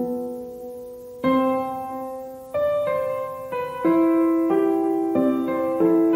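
Background piano music: slow, gentle notes struck one or two at a time, each left to ring out and fade before the next.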